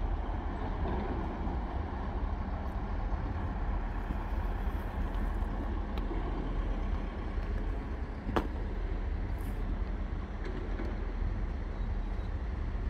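Diesel engine of a 2TE25KM freight locomotive running with a steady low rumble as the train departs, with one sharp clank about eight seconds in.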